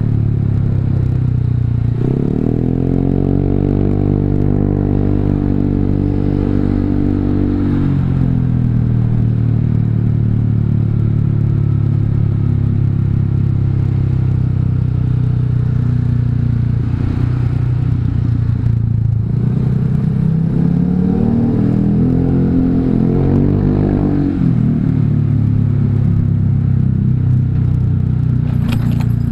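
Honda Vario 150 scooter's single-cylinder engine through an R9 Alpha aftermarket exhaust with the dB killer removed, running while riding. The exhaust note rises about two seconds in, holds, and falls back near eight seconds, then rises and falls again around twenty to twenty-four seconds as the rider accelerates and eases off.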